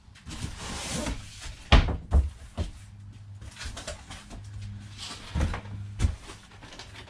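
Items and packaging being handled: a rustle, then a series of thuds and knocks, the loudest about two seconds in and more near the end, over a steady low hum.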